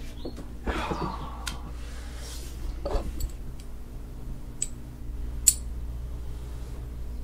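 A person sitting down in a chair, then a few sharp clicks as a small plastic object is handled, the loudest about five and a half seconds in, over a low steady hum.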